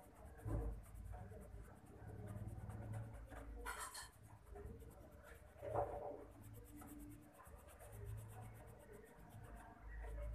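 Pencil scratching on paper as it shades in a drawing, faint, with a few louder strokes around the middle.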